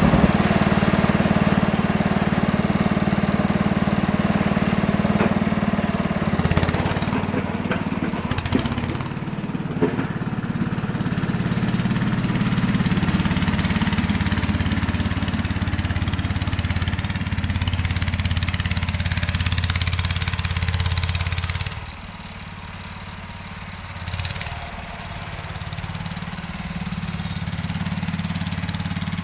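Sears Suburban 12 garden tractor's Tecumseh engine running steadily while the tractor plows snow. The engine gets quieter about 22 seconds in as the tractor moves farther away.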